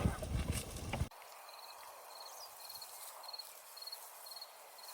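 Wind and handling noise on the microphone that cuts off about a second in. After it, a quiet rural background with an insect chirping steadily, short high chirps about twice a second.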